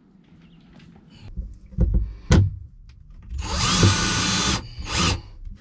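A few sharp knocks, then a cordless drill runs for about a second and gives one short second burst near the end.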